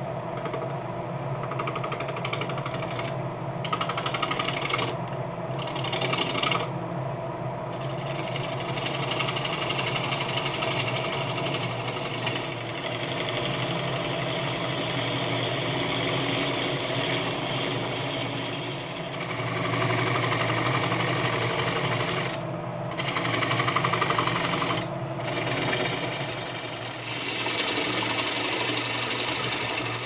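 Wood lathe running while a bowl gouge cuts a wet, green-wood bowl blank: a steady motor hum under the rough hiss of the cut, which drops out briefly about five times as the tool lifts off the wood.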